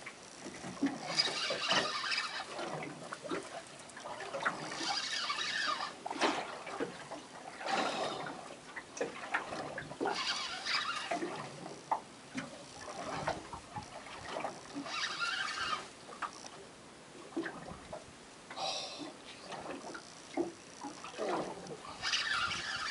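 A fishing reel being wound in repeated scratchy, clicking bursts every few seconds while a cod is pumped up on a bent rod. Water slops against the boat underneath.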